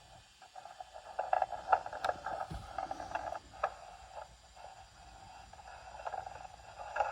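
Recorded clicks and handling knocks played back from a VHS-C tape through the JVC GR-AXM230U camcorder's built-in speaker. The sound is thin, with scattered sharp clicks that come more thickly from about a second in.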